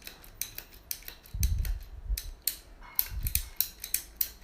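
Hand ratchet cutter being worked with its handle only half opened: a string of sharp ratchet-pawl clicks, with two dull knocks of handling about a second and a half and three seconds in. Worked this way, the blade does not move forward.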